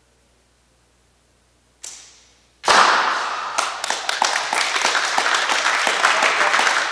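A bow shot: a short swish from the release about two seconds in, then a group suddenly bursts into loud clapping and applause that keeps going.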